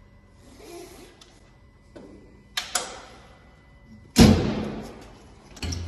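Metal storage-compartment doors on a tow truck's body being worked. Two quick latch clicks come about two and a half seconds in, then a loud bang of a door about four seconds in, and another thump near the end.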